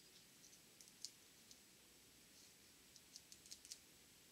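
Faint, scattered small clicks as a feeler gauge blade and the gears of a T-10 four-speed mainshaft are handled: a click about a second in and a quick cluster near the end. The gauge is checking the clearance between the third-speed gear and its thrust bearing.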